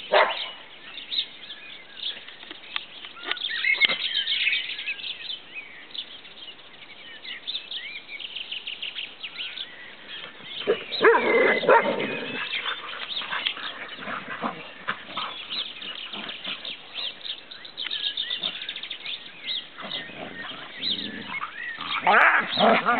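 A pack of Australian Shepherds barking and yipping in play, in scattered short bursts with the loudest clusters about eleven seconds in and near the end.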